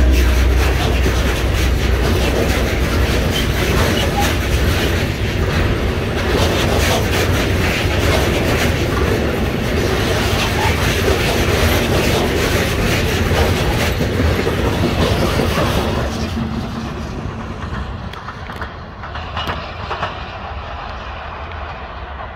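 A train running past at close range, its wheels clattering over the rail joints over a heavy low rumble. The sound dies away steadily over the last several seconds as the train moves off.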